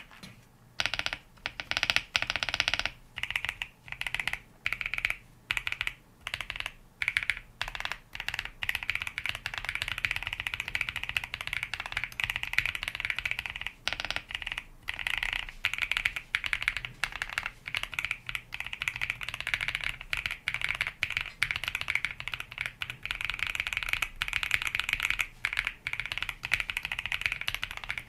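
Typing on a mechanical keyboard fitted with Aflion Fog light tactile switches (63 g actuation, slight bump), with a fairly deep sound. Short groups of keystrokes over the first several seconds give way to steady, fast continuous typing from about eight seconds in.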